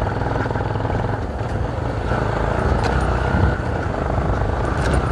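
Motorcycle engine running as the bike is ridden, a steady low rumble with road noise.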